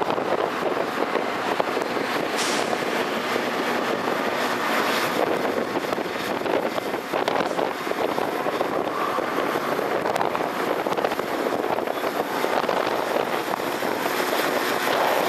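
Steady, even vehicle noise with no distinct events.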